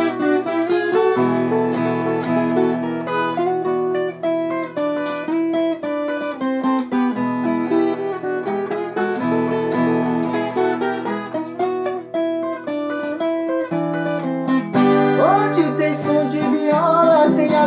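Recorded music: an instrumental introduction led by plucked strings, with a singing voice coming in a few seconds before the end.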